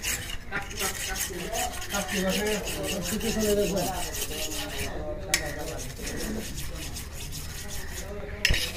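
Fast, rhythmic scraping of a blade across fish scales, several strokes a second: a carp being descaled, the stroke train pausing briefly twice.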